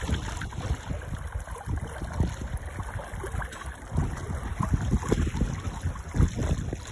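Wind buffeting the microphone in uneven gusts over the rush and splash of water streaming past a sailboat's stern and around the pendulum blade of its wind-vane self-steering gear.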